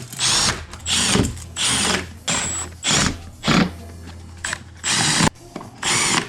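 Cordless drill/driver running in a series of short trigger bursts, about eight in six seconds, its motor whining in each burst.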